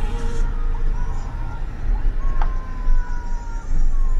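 Loud low rumble of road and wind noise from a moving vehicle, with a faint thin tone sliding slowly downward in the second half.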